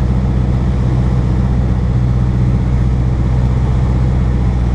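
A Cessna Cardinal's four-cylinder piston engine and propeller running steadily in flight, heard inside the cabin as a constant low drone.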